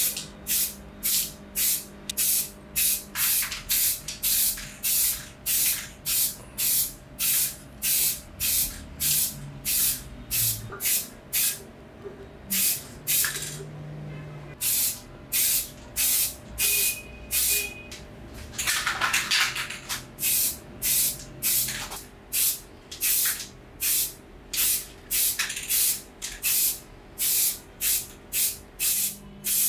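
Aerosol spray-paint can sprayed in quick, short hissing puffs, about two a second. There is a brief break about halfway through, and one longer spray a few seconds later.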